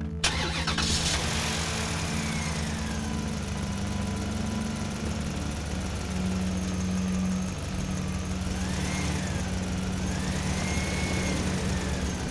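Excavator engine running steadily, with a whine that rises and falls in pitch several times.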